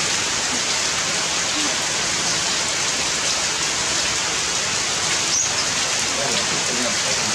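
Steady rain falling on broad-leaved tree foliage: a dense, even hiss of drops on wet leaves.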